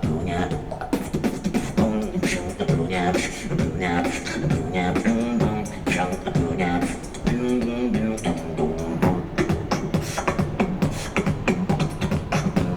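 Human beatboxing: fast vocal percussion clicks and hits layered over a hummed, pitched bass line.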